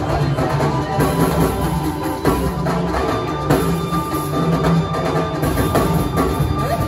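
Live band playing a percussion-heavy instrumental passage: hand drums and drum kit over bass and electric guitar.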